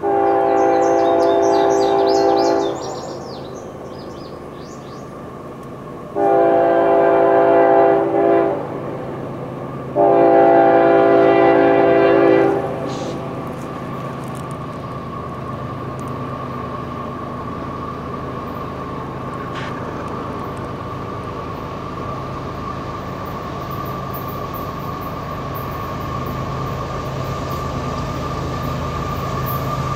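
Diesel locomotive's multi-chime air horn sounding a long, a long and a short, then a long: the grade-crossing signal. The approaching train's rumble follows and grows louder towards the end.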